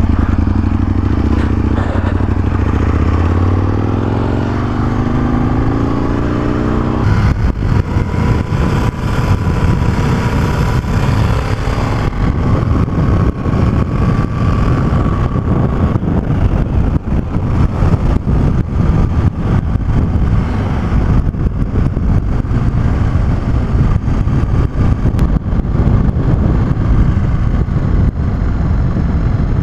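Aprilia Tuono 1000R V-twin engine pulling away, its pitch rising. About a quarter of the way in, the sound changes abruptly to a steady rush of riding at speed, with wind over the helmet-camera microphone and the engine running underneath.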